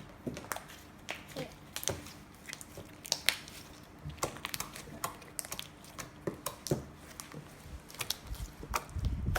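Slime being squished and worked by hand, giving irregular sticky clicks and pops. A low handling rumble builds near the end.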